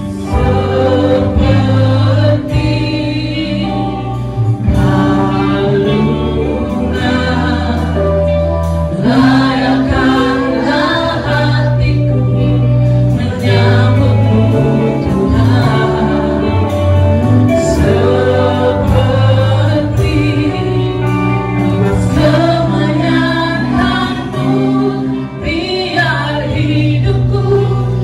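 Live gospel worship music: a church band with drum kit and electric guitar playing an upbeat song over a steady bass line while a group of singers sings.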